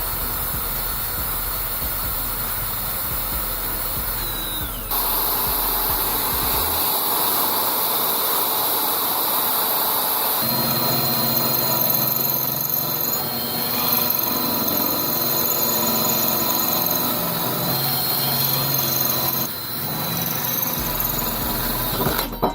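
Power tool cutting steel angle iron, running steadily with a thin high whine. The sound changes abruptly about five, ten and nineteen seconds in.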